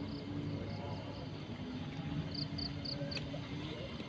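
Insects chirping in short high pulses, about three a second in runs of three or four, over a low steady background hum.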